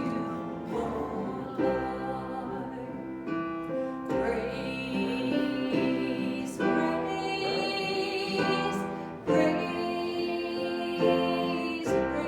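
Live church worship music: instruments playing a praise song with singing over sustained chords.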